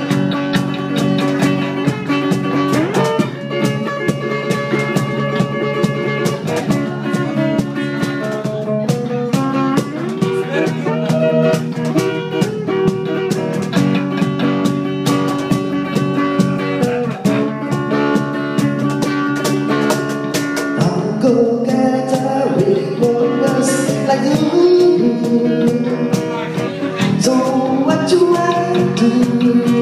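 Live band playing: guitar chords and held notes over a steady drum and cymbal beat.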